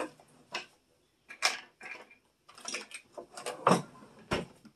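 Kitchen items knocked and set down on a countertop: a run of separate clacks and clatters, the loudest about three-quarters of the way in, then a dull thud just before the end.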